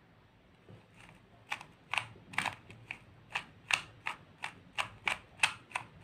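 A stickerless plastic 2x2 speed cube turned by hand: a run of sharp clicks, about three a second, starting about a second and a half in. The faces are being turned in repeated R′ moves to twist the last-layer corners into place one at a time.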